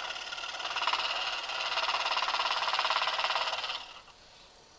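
Scroll saw's fine blade running up and down through a cherry hardwood board at a slow speed setting, a rapid, even rhythm of cutting strokes. It stops abruptly near the end.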